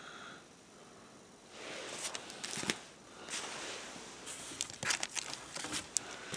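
Comic books being handled and shuffled, with crinkling and rustling and scattered small clicks. It is fairly quiet for about the first second and a half, then the rustling starts.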